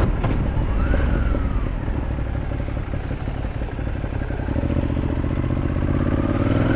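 Ducati Monster 821's 821 cc L-twin engine running at low revs as the motorcycle rolls slowly, a steady low throb that picks up a little near the end.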